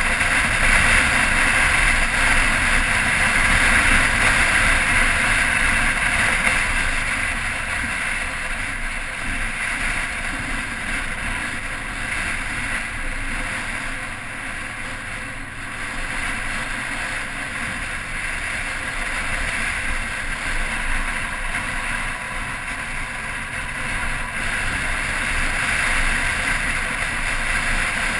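Motorcycle riding at road speed: its engine running under a steady rush of wind on the microphone. The noise eases around the middle as the bike slows for a bend, and builds again as it picks up speed.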